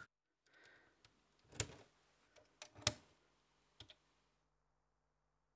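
Faint clicks of Eurorack patch cables being plugged into jacks and module controls being handled: about four short clicks, two of them close together near the middle, over a faint steady low hum.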